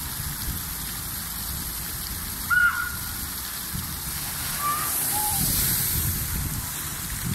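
Water-park tipping bucket dumping its load: steady running water, then a rush of falling, splashing water that swells from about four and a half seconds in. Short high cries break through, the loudest about two and a half seconds in.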